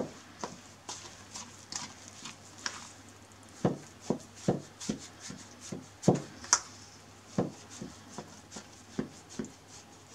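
Scraper scraping and knocking against a large stainless steel mixing bowl while thick, buttery dough is mixed, in short irregular knocks about twice a second.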